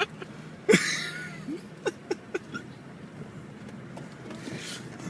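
A pet hiccuping in bouts: a loud hiccup with a short falling squeak about a second in, then a quick run of three sharp hiccups, and a breathy puff near the end.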